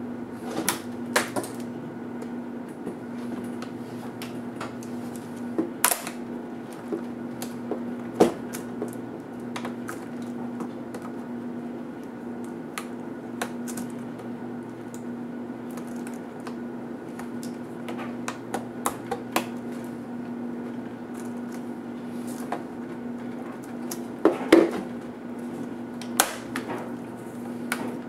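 Scattered sharp plastic clicks and snaps as a Gateway SA8 laptop's keyboard bezel strip is pried loose with a tool and the keyboard is worked free, the loudest cluster near the end. A steady low hum runs underneath.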